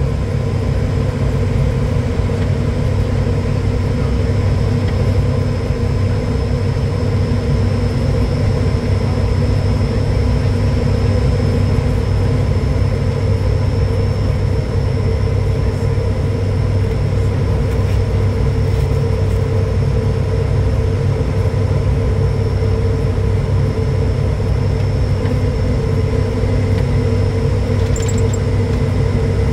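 ATR 72-500's twin turboprop engines and propellers heard from inside the cockpit: a steady, even drone with a deep hum and several held tones.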